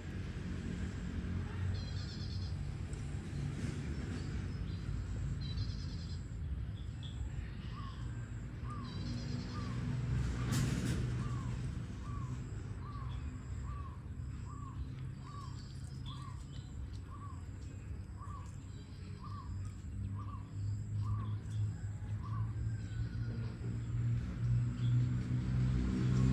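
Birds calling over a low steady rumble: short chirps here and there, and a run of repeated short call notes, about one every 0.7 seconds, through the middle.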